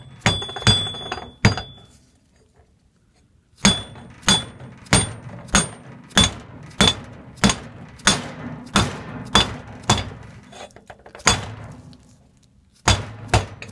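Dead blow hammer knocking on a steel tube and block to drive the third-and-fourth synchro hub down a Honda S2000 AP2 transmission mainshaft. There are a few quick strikes, a short pause, then a steady run of strikes about every 0.6 s, several with a short metallic ring. The pitch of the strikes changes as the hub bottoms out near the end.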